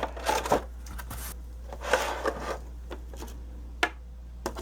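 Hard plastic parts of an embossing tool kit being handled: a few scattered clicks and knocks as pieces are moved and set down, over a low steady hum.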